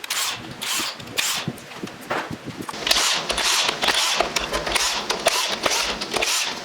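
Hand tools and metal parts of a 47RE automatic transmission being handled during teardown, making irregular bursts of scraping and clattering with scattered clicks.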